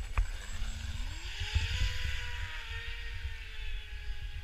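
Brushless electric motor of an Atomik Barbwire RC boat whining over a hiss of water spray. Its pitch climbs steeply about a second in as the boat speeds up, then eases slowly lower.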